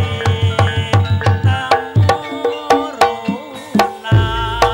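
Javanese gamelan music for an ebeg hobby-horse dance: drum strokes in a quick, even pattern over ringing, held pitched tones. A deep low hum comes in about four seconds in.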